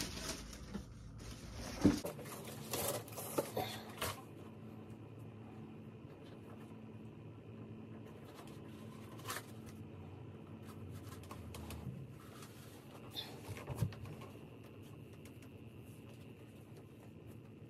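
Paper rustling and a cardboard shoebox being handled as new sneakers are unpacked, with several sharp rustles and taps over the first few seconds. After that it settles to quiet room tone with a faint steady hum, broken by a few soft taps and rustles as the shoes are put on.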